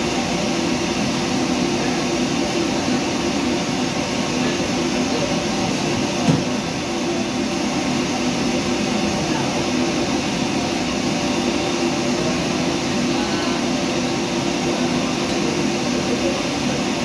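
Commercial kitchen exhaust hood fan running, a steady loud rushing noise with a few held tones. A single short knock sounds about six seconds in.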